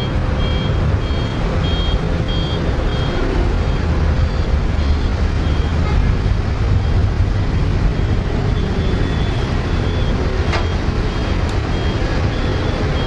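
Heavy diesel construction machinery running steadily with a deep rumble, while a backup alarm beeps repeatedly, about two beeps a second. There is one sharp click about ten seconds in.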